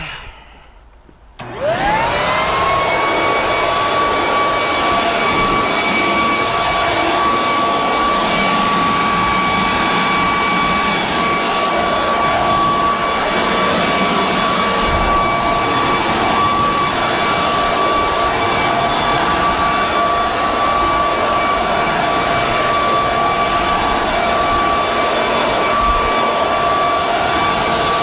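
Leaf blower starting up about a second and a half in, its whine rising quickly, then running steadily at full speed: a high steady whine over a rush of air, used to blow leaves and debris off the deck.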